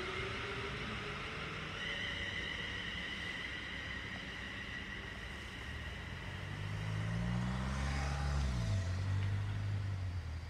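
London Midland Class 350 electric multiple unit pulling away, its traction motors giving a high whine that fades. In the second half a low engine drone builds to the loudest part and drops in pitch about two-thirds of the way in.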